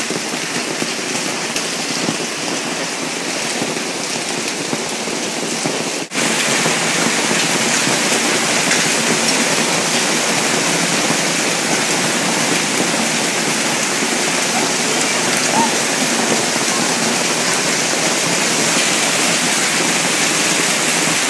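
A heavy downpour: a dense, steady patter of falling rain and hail on hard surfaces. It breaks off for an instant about six seconds in and comes back louder.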